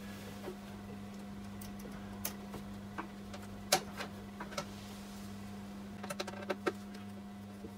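Small metal clicks and taps of a hand tool working on battery cable terminal fixings, scattered and irregular with a small flurry near the end, over a steady low electrical hum.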